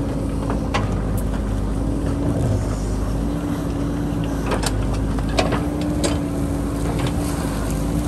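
JCB backhoe loader's diesel engine running steadily with a constant droning tone as the hydraulic arm works the bucket. Several sharp knocks of rock against the steel bucket and stones clattering are scattered through it.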